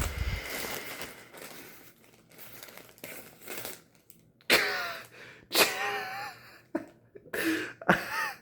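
Rustling handling noise at the start, then a man's sharp pained gasps and wordless vocal exclamations, several in a row, after nicking his finger on a live balisong blade.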